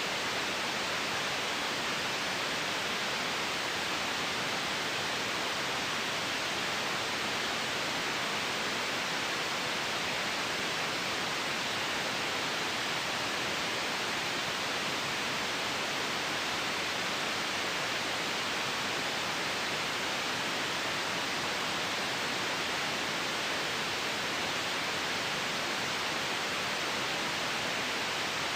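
Generated white noise: a steady, bright hiss that does not change.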